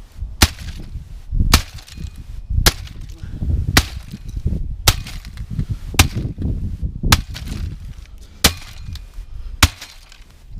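A sledgehammer repeatedly striking a Sony micro stereo system: nine sharp blows, about one a second.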